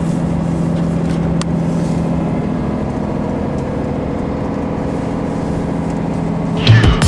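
Tour coach running at a steady speed, heard from inside the cabin: an even engine and road drone with a constant low hum. Music cuts in near the end.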